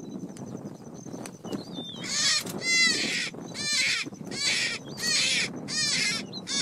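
A hare screaming in distress as cheetahs hold it: about seven harsh, high-pitched squeals in quick succession, starting about two seconds in. Faint birdsong and grass rustling come before them.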